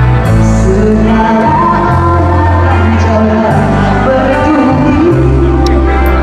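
Live pop band playing with a woman singing into a microphone: long held bass notes and electric guitar under the vocal line. A few sharp clicks sound near the end.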